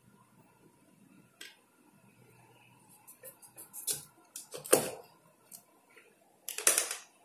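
Kitchen knife cutting a lemon in half on a plastic cutting board: a few light clicks and ticks, then two louder knocks on the board, one a little past halfway and one near the end.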